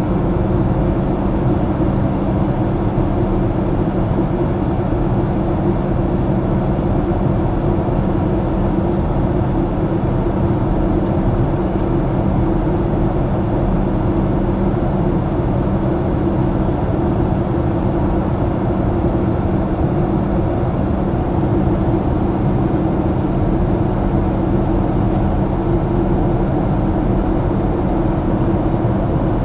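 Steady in-flight cabin noise of a Boeing 737-800: a constant rush of air with a low engine drone and two steady hum tones beneath it.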